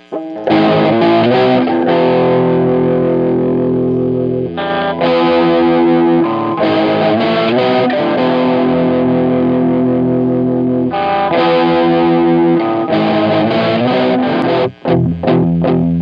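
Distorted electric guitar, a J-Craft LTX-1, playing rock power chords (G#, A, B, then E), each struck and let ring, in a run slowed to three-quarter speed. About a second before the end it switches to quick palm-muted chugs on E minor.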